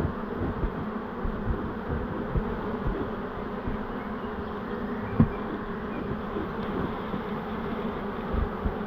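A honey bee swarm buzzing steadily at close range, a dense continuous hum, with scattered low thumps and one louder knock about five seconds in.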